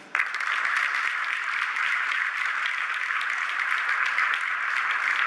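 Audience applauding, breaking out suddenly just after the start and carrying on steadily as dense, even clapping.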